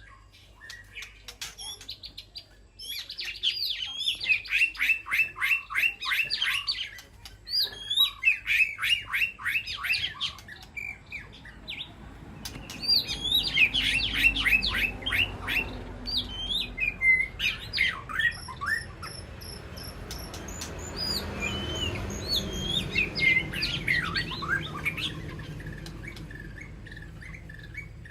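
White-rumped shama calling: runs of rapid, steeply falling notes, each run lasting a second or two and repeated several times, with thin high whistled notes in between.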